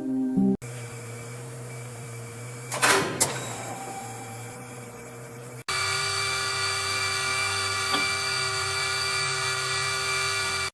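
Steady whine and hum of small motorized machines, changing abruptly twice. A brief loud burst of rushing noise comes about three seconds in, and the whine is louder and richer in tones over the second half.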